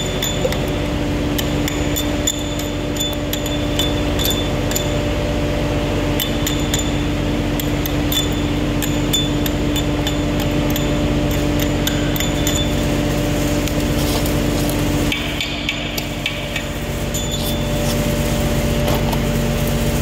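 A steel hand tool tapping and clinking irregularly against a stainless steel column, in sharp metallic clicks for about the first twelve seconds, then stopping. Under it runs a steady machine hum.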